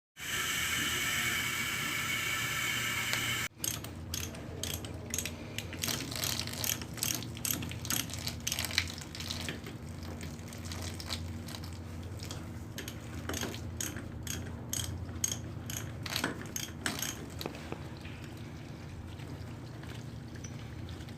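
Ratchet wrench clicking and metal tools knocking on a sprinkler alarm valve, irregular sharp clicks over a steady low hum. It opens with a loud rushing noise, like water, that cuts off abruptly about three and a half seconds in.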